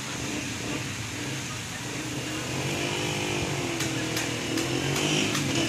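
Heavy rain pouring steadily, with a motorcycle engine running close by; its pitch dips and rises about three seconds in. A few sharp ticks come near the end.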